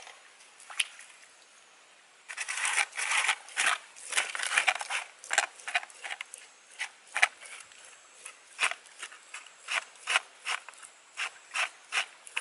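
Hands rubbing, pressing and smoothing the wall of a freshly built clay pot: a ragged run of short scrapes and rubs that starts about two seconds in and carries on in irregular strokes.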